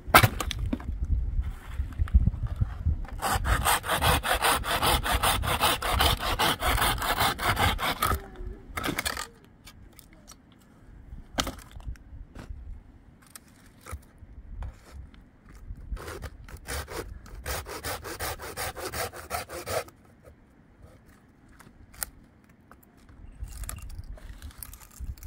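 Small hand saw cutting through a wooden log in rapid back-and-forth strokes, in two long spells of sawing with a pause of scattered scrapes between.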